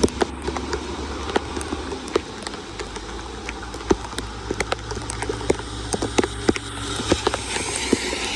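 Rain pattering on water and hard ground: a steady wash of water noise with many irregular sharp drop ticks.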